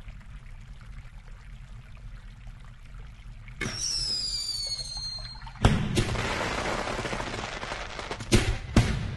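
Firework sounds: a low fizzing like a burning fuse, then about three and a half seconds in a whistle falling in pitch, a loud bang about two seconds later followed by crackling, and two sharp bangs near the end.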